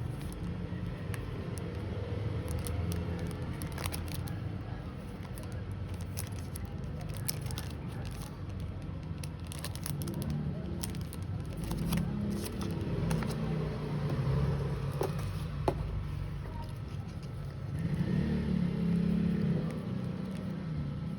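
Packaging being handled: scattered clicks, crackles and light scraping over a steady low background rumble.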